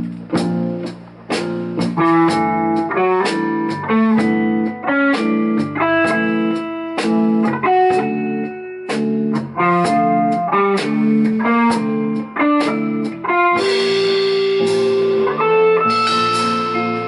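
Live rock band of two electric guitars, electric bass and drum kit playing a song in a repeated rhythm of short chords over the drum beat. About three-quarters of the way in, the playing opens into held chords under a cymbal wash.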